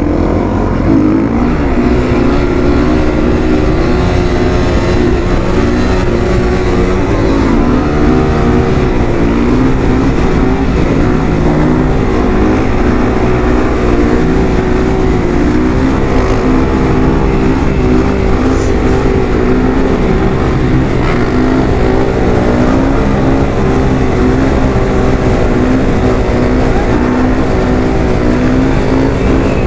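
Yamaha WR450F supermoto's single-cylinder four-stroke engine running at a steady cruising speed, its pitch holding with only slight wavering.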